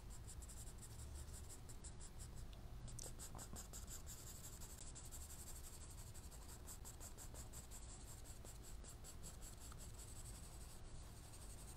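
Faint scratching of a pencil point on sketchpad paper as short hatch marks are drawn, over a low steady hum.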